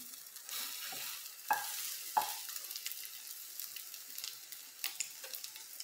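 Omelette eggs sizzling in an oiled ceramic non-stick frying pan as they are turned with a wooden spoon and silicone spatula, with a steady high hiss. Two sharp knocks of the utensils against the pan stand out, about a second and a half and two seconds in.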